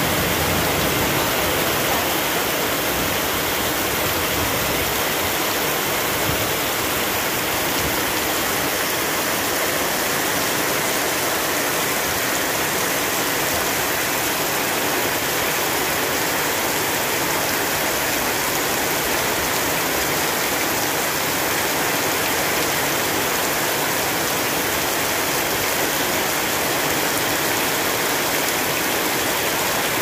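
Heavy tropical rain pouring down steadily, falling off a roof edge and splashing into standing water on the ground.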